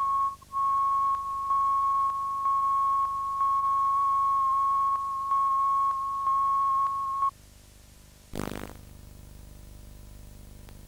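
Broadcast line-up tone, a steady tone of about 1 kHz played over the programme's countdown clock, dropping out briefly about half a second in and stepping between two loudness levels before cutting off about seven seconds in. After it comes low tape hum and hiss with one short burst of noise about eight and a half seconds in.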